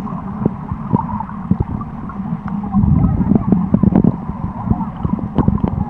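Muffled underwater noise from a camera submerged in a waterproof housing: low rumbling water movement with gurgles and scattered sharp knocks, getting louder about three seconds in.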